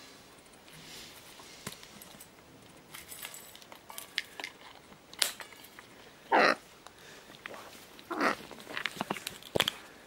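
Scarlet macaws eating seeds from steel bowls: scattered sharp clicks and crunches of beaks on seed and metal, with two short loud calls about six and eight seconds in, the first the loudest.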